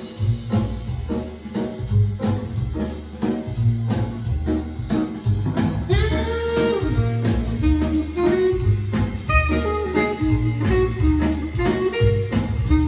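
Big band jazz played back through a Sonus Faber Omnia speaker: a repeating low bass vamp with drums, and a horn line swelling in about six seconds in.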